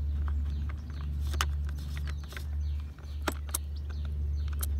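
Several sharp clicks and knocks as the side cover is fitted back onto a Parkside cordless chainsaw, over a low steady rumble.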